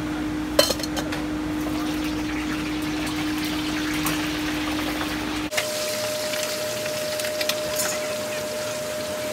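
Hot oil sizzling and bubbling in a wok as food deep-fries in a wire basket, over a steady hum, with a sharp metal clink about half a second in. About five and a half seconds in the sound changes abruptly to frying at another wok, with a higher-pitched hum.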